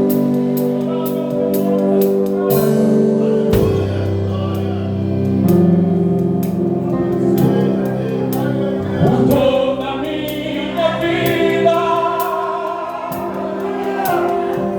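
Live gospel worship band playing, with a bass guitar holding low notes, drum-kit cymbal strokes and sustained chords under singing voices; a solo voice wavers above the band in the second half.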